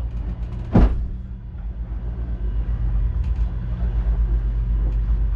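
Hanse 400e's inboard diesel engine running steadily under way, with one loud thump about a second in as the hull pounds into a wave.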